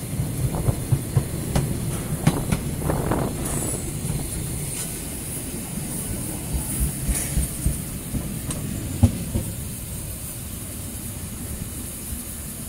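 Narrow-gauge steam train rolling through a station: a low running rumble with sharp wheel clacks over rail joints and points, and a steady high hiss. The clacks come thickest in the first few seconds and again midway, and the sound eases off near the end.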